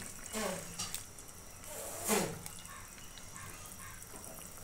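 Fish and cauliflower curry simmering in the pan, a faint bubbling. Over it come two short calls falling in pitch, about half a second and about two seconds in.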